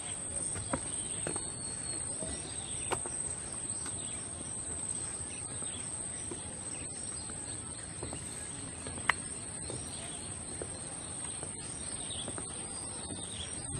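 Outdoor ambience of birds chirping faintly over a steady background hiss with a constant high-pitched drone. A few sharp clicks stand out, the loudest one about nine seconds in.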